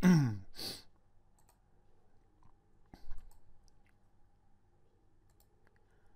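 A man's short low grunt falling in pitch, followed by a quick breath. About three seconds in comes a single click of a computer mouse.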